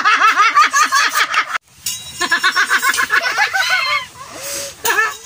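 Loud, high-pitched laughter in quick repeated ha-ha pulses. It breaks off for a moment about one and a half seconds in, then starts again and trails into squeals near the end.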